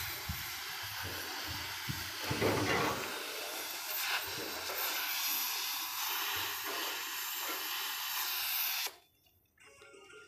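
Electric arc welding: a steady frying hiss from the arc that stops abruptly about nine seconds in, with some low rumbling in the first few seconds.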